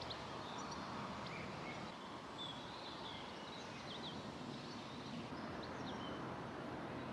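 Small birds chirping and singing in short scattered calls over a steady outdoor background hum.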